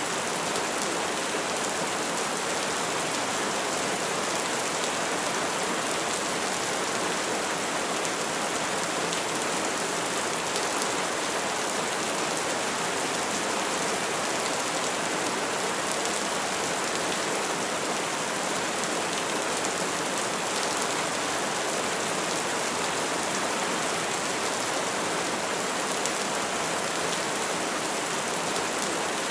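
Steady rain falling, an even hiss that holds unchanged throughout, with no thunder.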